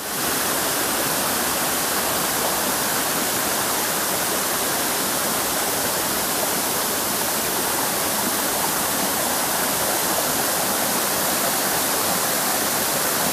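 Waterfall rushing steadily: a dense, even wash of falling water.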